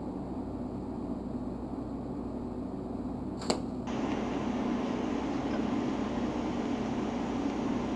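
A steady low hum, then a sharp click about three and a half seconds in as the TIG arc is struck. A steady hiss follows as the TIG torch's arc runs the weld bead along a steel angle-iron edge joint.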